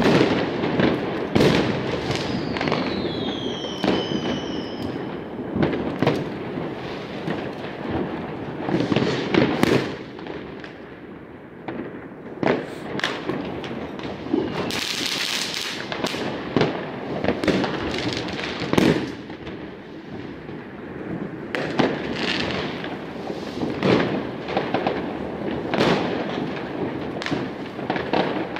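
Fireworks and firecrackers going off in a continuous, irregular string of bangs and crackles. A couple of falling whistles come about three seconds in, and a hissing burst comes about halfway through.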